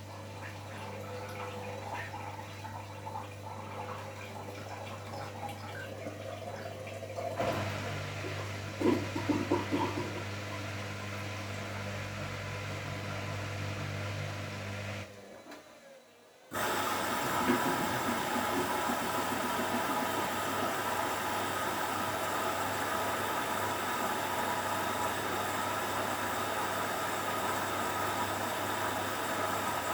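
Hoover washing machine ending its first short spin with a steady low hum from the motor and drain pump, with a few brief rattles about nine seconds in. About halfway through everything stops for a moment, then water starts rushing in steadily as the machine fills for the first rinse.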